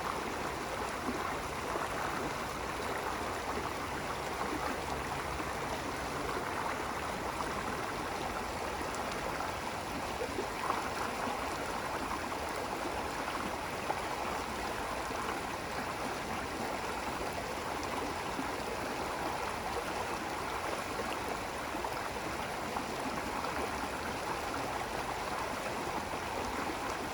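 Running water: a steady, even rush of a stream flowing, with a faint gurgle.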